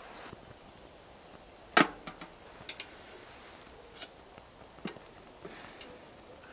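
A few scattered sharp clicks and knocks, the loudest about two seconds in, from a metal cook pot being handled beside a small wood stove that is burning.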